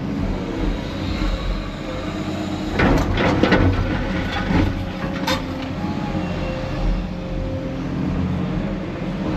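Diesel construction machinery, an excavator working beside a dumper, running with a steady low rumble. There is a cluster of clanks and knocks about three seconds in, a sharp single knock a little after five seconds, and a faint steady whine for a few seconds after that.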